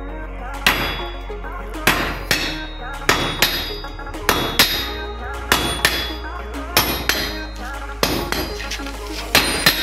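Hammer blows on a red-hot steel bar lying on an anvil, ringing metallic strikes that mostly come in close pairs about once a second.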